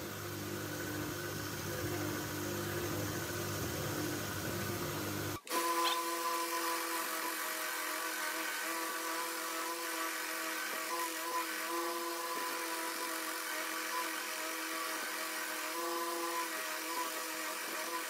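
Homemade 2x36 belt grinder powered by an old washing-machine motor, running steadily with a whine and the hiss of the abrasive belt as metal is ground on it. About five seconds in the sound breaks sharply and a low hum drops out; from then on a steel chisel is being sharpened on the belt.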